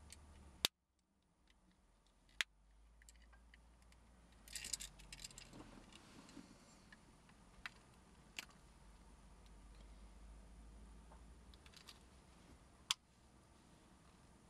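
A broken car key with a plastic fob being handled: scattered sharp clicks and short jangling rattles, with a cluster of rattles about a third of the way in and another near the end.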